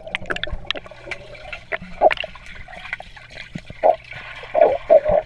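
Underwater sound of a swimming pool picked up by a GoPro Hero3+ in its waterproof housing: muffled water noise full of bubbling clicks and pops as swimmers move around the submerged camera, with louder gurgles about two seconds in, near four seconds and near the end.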